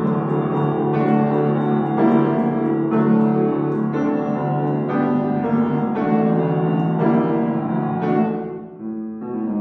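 Upright piano played solo, a dense passage of struck notes and chords. It thins out briefly near the end, then picks up again.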